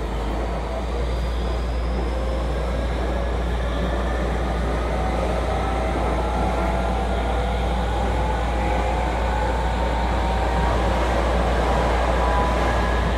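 Tokyu 2000 series commuter train's Hitachi GTO-VVVF inverter whining as the train accelerates, its tones rising steadily in pitch. The traction motors and wheels run beneath it, heard from inside the passenger car.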